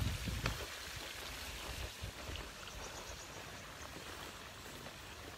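Quiet outdoor garden ambience: a steady faint hiss, with a low rumble on the phone microphone in the first half second and a few faint high chirps about three seconds in.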